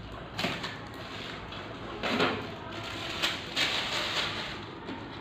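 A few short scraping and rustling handling noises, about four in all, as packaging and parts of a new printer are handled during unboxing.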